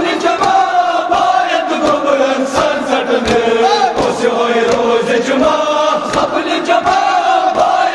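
A group of men chanting a Kashmiri marsiya (mourning elegy) in unison, with a steady beat of open-hand chest blows (matam) about twice a second.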